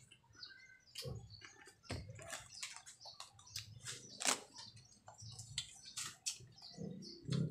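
Faint, irregular crunches and crackles of a snack being eaten close to the microphone, with its plastic packet handled.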